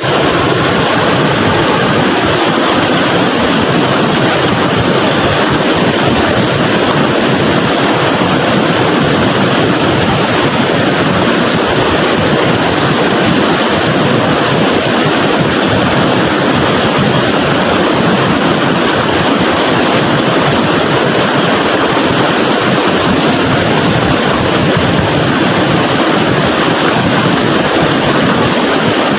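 A river swollen by flood water, rushing and churning in a loud, unbroken roar.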